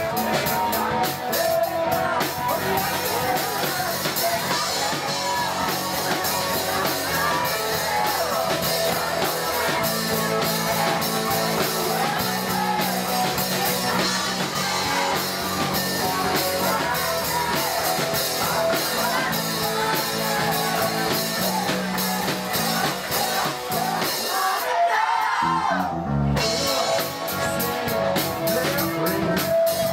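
Live rock band playing: electric guitars, bass guitar, drum kit and a lead singer, amplified through a small PA. The band briefly thins out near the end before coming back in.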